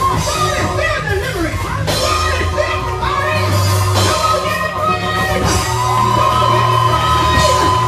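Live gospel praise music from a church band with drum kit and keyboard, playing loudly over held low bass notes, while a worship leader sings and shouts into a microphone.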